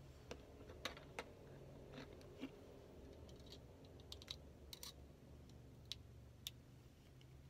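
About a dozen light, irregular clicks and small taps from a pair of metal-framed eyeglasses being handled and their arms unfolded, over a faint low room hum.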